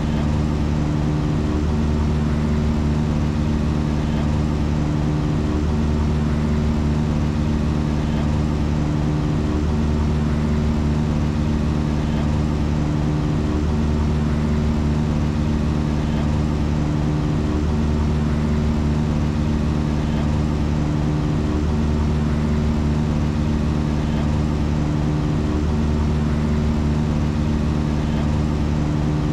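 Drum beats played at 2637 per minute, about 44 a second, so fast that they merge into a steady, loud buzzing drone like an idling engine. The pattern repeats about every four seconds, like a loop.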